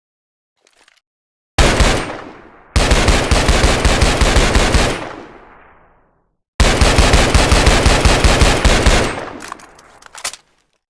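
Blank rounds fired through a blank firing adaptor in rapid bursts of about ten shots a second, with echo trailing after each burst. There is a short burst, then two longer bursts, then a few single shots near the end.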